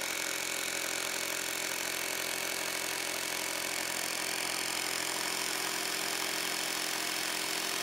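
Corded electric rotary hammer running steadily as it drives a copper ground rod down into the soil.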